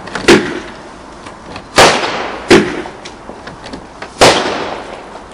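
Fireworks going off: four sharp, loud bangs at uneven intervals of one to two seconds, each fading out over about a second.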